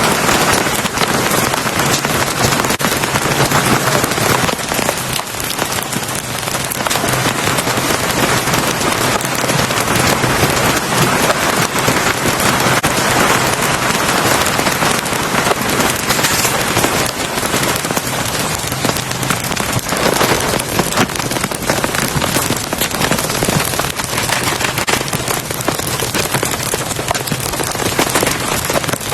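Heavy rain falling steadily, a dense patter of drops hitting a surface.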